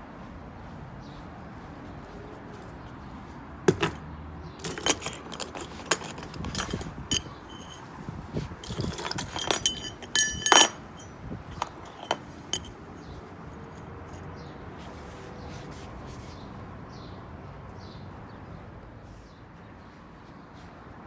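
A run of metal clinks and clanks, some ringing briefly, as shooting targets are handled and set up; the loudest clank comes about ten seconds in.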